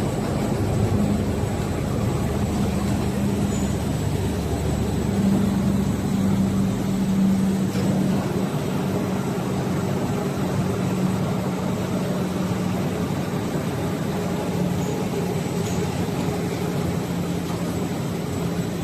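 Glass tempering furnace line running: a steady industrial drone with a low hum and a faint high whine.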